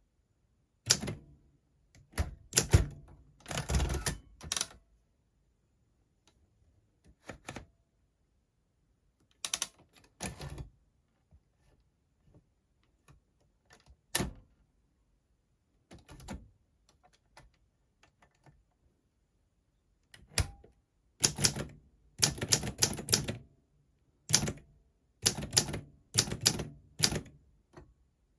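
Olympia SM4 manual typewriter being typed on in irregular runs of key strikes, with pauses of several seconds between runs.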